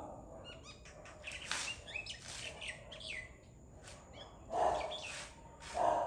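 Common myna calling: a quick run of varied whistled, gliding and clicking notes, then two louder, lower, harsher sounds near the end.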